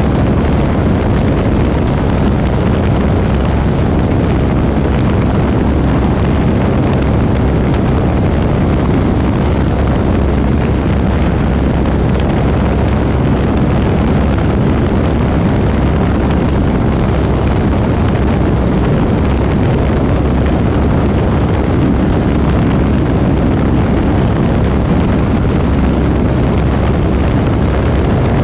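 Light aerobatic plane's piston engine and propeller running steadily, a loud, unbroken drone heard on board.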